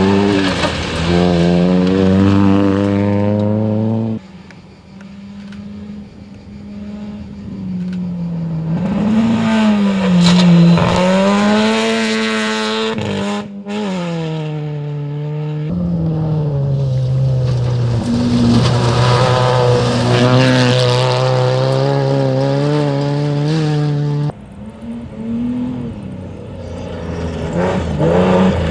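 Rally cars on a dirt stage passing one after another, their engines revving up and falling back through gear changes. The sound cuts off abruptly a few times, about 4, 13, 16 and 24 seconds in, as one car gives way to the next. A SEAT Ibiza is heard at the start and a BMW 3 Series at the end.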